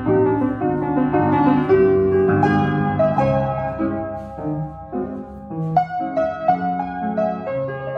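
Solo piano playing a slow, expressive piece of sustained chords. It grows softer about four seconds in, then a firmly struck chord comes near six seconds.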